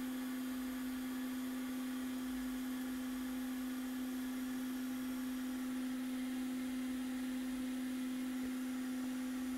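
A steady, even hum with a faint hiss beneath it, unchanging throughout.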